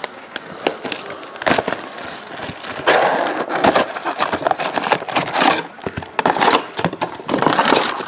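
Plastic shrink wrap torn off a sealed trading card box and crumpled by hand: a dense run of crinkling and crackling with many sharp clicks, loudest in the middle.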